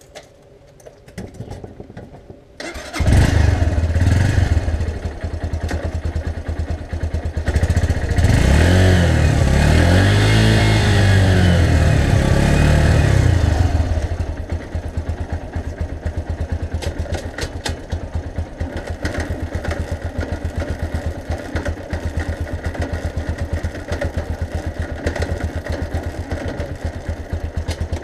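AJS 125 cc single-cylinder motorcycle engine starting about two and a half seconds in, revved up and down for several seconds, then running steadily at a lower speed with an even pulse while the rear wheel turns on the stand.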